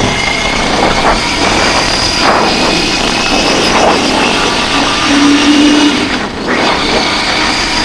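Royal Enfield Continental GT 650 motorcycle's parallel-twin engine and exhaust under way, mixed with wind and road noise, recorded by a helmet-mounted action camera's built-in mic.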